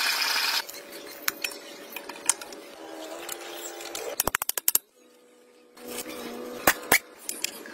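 Metal clicks and clinks as steel timing gears and bolts are handled and fitted by hand onto the front gear plate of a two-cylinder diesel tractor engine, with a quick run of rapid clicks a little after four seconds in and a couple of sharper clinks near the end.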